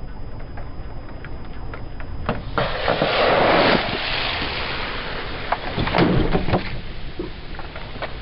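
A car tyre crushing a 2-litre plastic Coca-Cola bottle full of carbonated cola. A few sharp cracks come first, then about two and a half seconds in the bottle bursts and the fizzing cola sprays out with a strong hiss lasting about a second. A second burst of cracking and spray comes around six seconds in.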